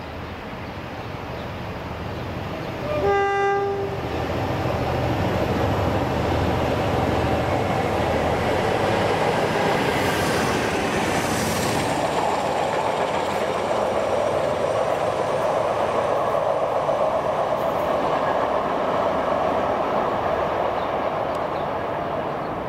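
Class 47 diesel locomotives passing at close range: one short horn blast about three seconds in, then their Sulzer engines running hard as they go by, followed by the coaches rolling over the rails.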